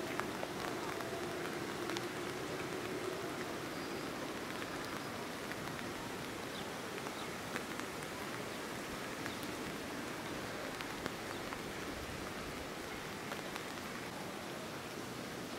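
Light rain falling: a steady patter with occasional sharper drop ticks.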